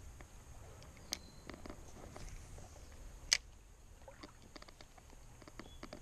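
Faint ticking and clicking of a fishing rod and reel being worked as a lure is retrieved, with a sharp click about a second in and a louder one about three seconds in.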